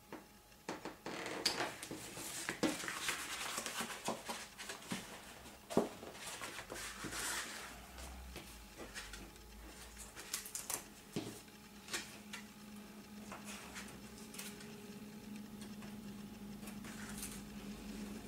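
Paper rustling and crinkling as small taped paper pennants are handled and pressed onto a cardboard box, with scattered light taps and clicks, busiest in the first half. A faint low hum comes in during the second half.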